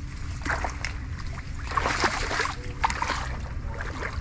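Water splashing and sloshing in short bursts, about half a second in and again around two and three seconds in, over a steady low rumble.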